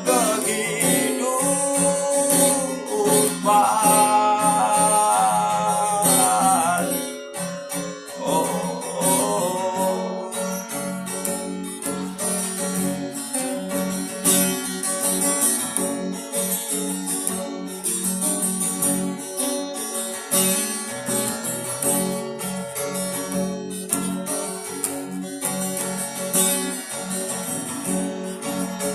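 Acoustic guitar accompanying a man singing a sustained line for about the first seven seconds, after which the guitar carries on alone as an instrumental interlude.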